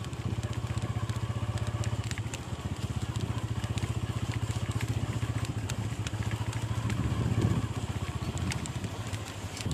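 Honda motorcycle's single-cylinder engine running steadily as it is ridden over a dirt track, swelling briefly about seven seconds in.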